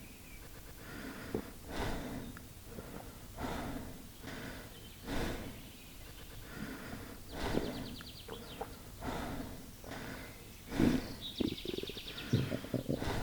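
A person's stomach growling and gurgling, in repeated short puffs about every one and a half to two seconds, with two longer rapid rattling gurgles in the second half.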